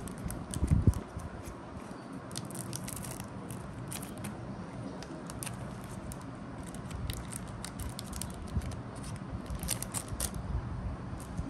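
Wrapper of a trading card pack crinkling and crackling as it is torn open and the cards are handled, in a run of small irregular crackles. A thump about a second in.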